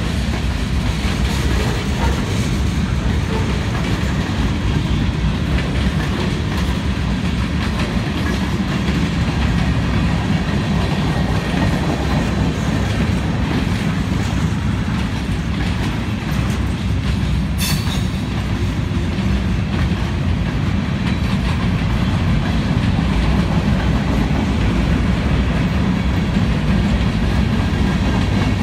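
Freight cars of a mixed freight train rolling past: a steady low rumble of steel wheels on the rails with the clickety-clack of the wheels over the rail joints. A brief high squeal comes about two-thirds of the way through.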